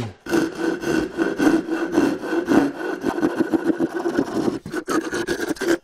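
Double-edged Japanese pull saw (ryoba) cutting spruce in a steady run of quick, short strokes, sawing off the waste at the shoulder of a hand-cut finger joint.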